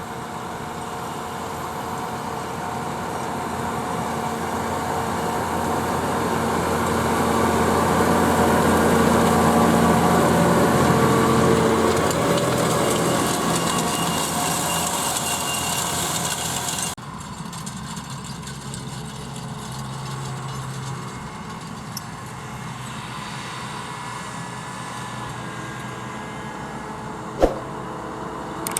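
Case IH Puma 240 CVX tractor's diesel engine running steadily while it pulls a Horsch Pronto 6 DC seed drill, growing louder as it comes near and then fading away. About two-thirds of the way through, the sound cuts abruptly to the same kind of engine, quieter and farther off, and a single sharp click comes near the end.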